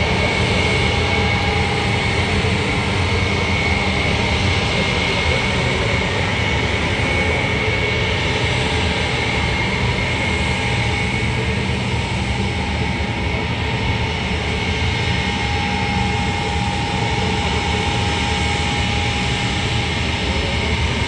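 Ilyushin Il-76 jet transport taxiing, its turbofan engines running with a steady loud rush and a high whine.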